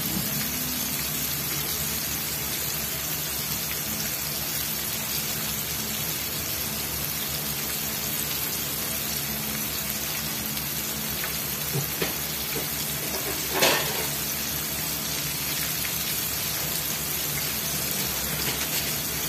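Coated chicken pieces deep-frying in oil in a wok, a steady crackling sizzle. A short knock about fourteen seconds in.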